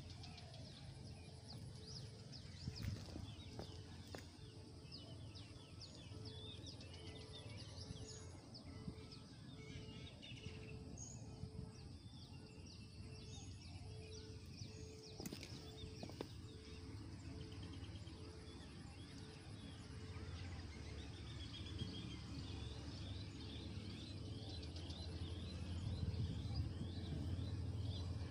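Faint open-air ambience: birds chirping and calling over a low rumble that grows louder near the end, with a faint note repeating a little faster than once a second.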